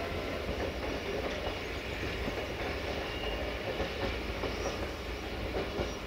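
Freight train behind an LDH 1250 diesel-hydraulic locomotive running on out of sight: a steady low engine rumble under the clatter of wagon wheels over the rail joints.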